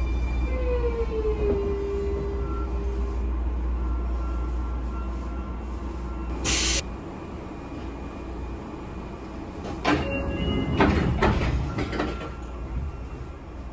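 Sotetsu 9000 series electric train heard from inside the car as it slows: the motor whine falls in pitch, then holds steady while the rolling rumble fades. A short hiss of air comes about six and a half seconds in, and several clunks and knocks follow near the end.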